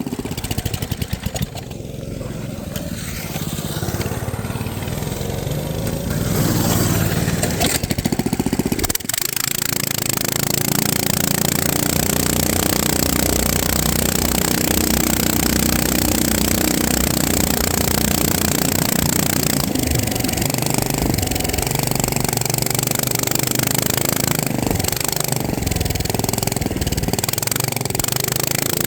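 FPV quadcopter's electric motors and propellers buzzing, the pitch shifting with the throttle, with a brief dip about nine seconds in.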